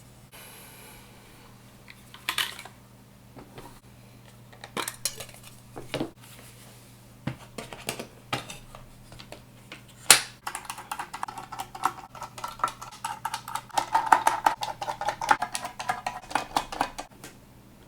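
Metal parts of an aluminum mechanical keyboard case being handled during disassembly: scattered clicks and clinks, a sharp knock about ten seconds in, then several seconds of rapid clicking with a metallic ring.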